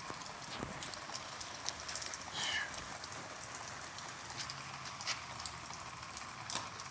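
Steady rain falling, with scattered sharp drops striking nearby surfaces and a brief high chirp about two and a half seconds in.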